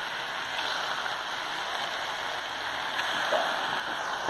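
Egg omelette frying on a hot flat-top griddle, a steady sizzle.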